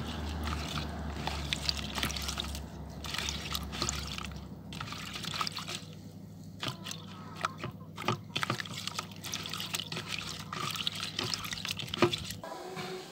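Olive leaves being rinsed by hand in a plastic bowl of water: irregular splashing, sloshing and trickling as the fingers stir the leaves.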